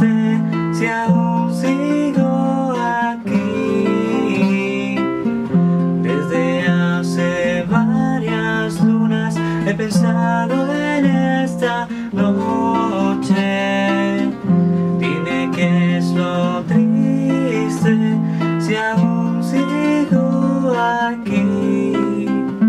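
Acoustic guitar song in its instrumental riff: steady strummed chords under a melodic lead line, with no words.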